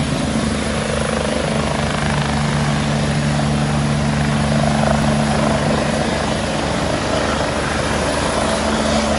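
Medical helicopter taking off: its rotor blades beat rapidly over a steady engine drone.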